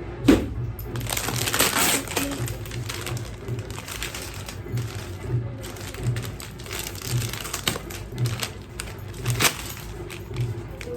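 Packaging crinkling and rustling as a chocolate gift is handled and unwrapped, with a sharp crack near the start, over faint background music with a steady low beat.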